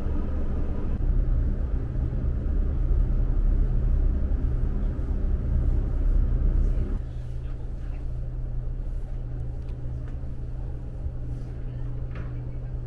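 Vehicle engine running with a steady low drone under a heavy rumble; about seven seconds in the rumble drops and the drone carries on more evenly.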